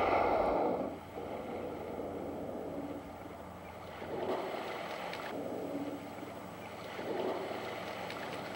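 Humpback whale at the surface: a rush of water and air, loudest in the first second, then two softer swells of rushing water as it arches its back and dives.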